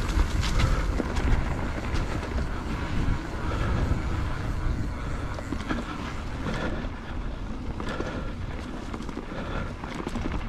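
Mountain bike riding a dirt trail, heard from a bike- or rider-mounted microphone: wind buffeting the microphone over tyre noise, with scattered clicks and knocks as the bike rattles over bumps. It is louder in the first half.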